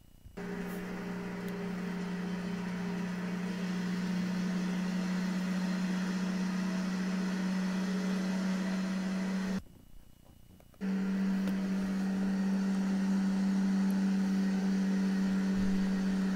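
A person humming one steady low note as a play-acted engine sound for a toy delivery truck, stopping for about a second roughly ten seconds in, as if for a breath, then carrying on.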